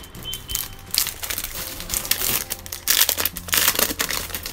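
Crinkling and rustling of wrapping as a notebook is unwrapped and handled, in irregular bursts, loudest about a second in and again around three to four seconds in.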